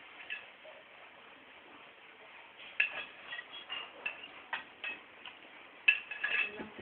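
Light clicks and clinks of eating utensils against a dish, irregular and sparse at first, then coming every half second or so in the second half.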